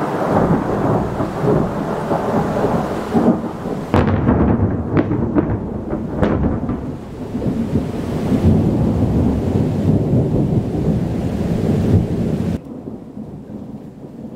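Close thunder: a sudden loud rumble that rolls on for about twelve seconds, with several sharp cracks about four to six seconds in, then cuts off suddenly. Rain hisses underneath.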